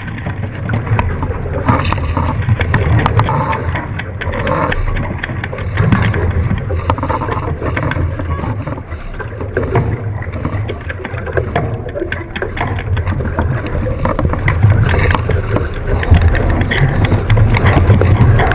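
Wind buffeting an onboard camera microphone over water rushing along the hull of an 18ft racing skiff under sail: a steady low rumble that grows louder over the last few seconds.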